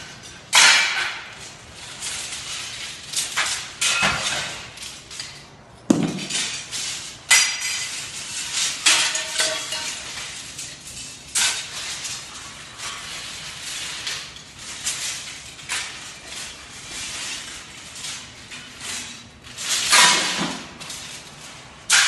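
Scrap copper wire and tubing clattering and clinking as it is handled and sorted on a pile. The metal rattles and knocks irregularly throughout, with a few louder clanks.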